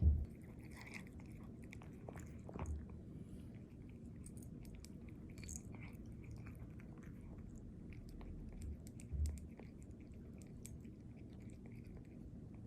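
A cat chewing and biting venison, a steady run of small wet, crunchy clicks from its teeth, with a few short low thumps now and then.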